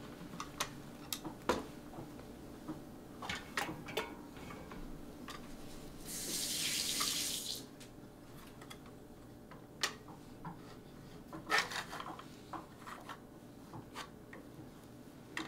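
Small clicks and knocks of plastic and aluminium parts as a Caliburn foam-dart blaster is taken apart by hand, with a brief hissing rush of parts sliding about six seconds in.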